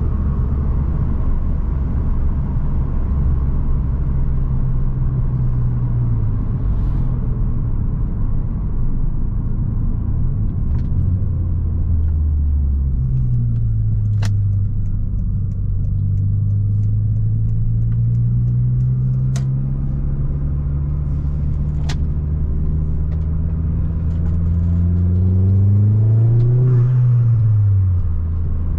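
Turbocharged 2.0 four-cylinder engine of an Opel Astra G Bertone running while driving. Its note holds steady for the first half, then rises slowly for several seconds as the car accelerates, and climbs more sharply before dropping back near the end. A few sharp clicks sound in the middle.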